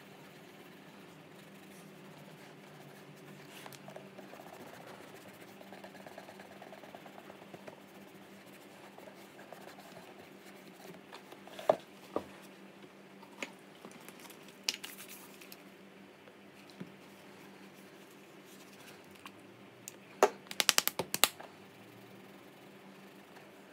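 A cloth rubbing wax polish over a leather boot toe, soft and faint, over a low steady hum. Several sharp clicks of small items being handled come about halfway through, and a quick run of clicks comes near the end.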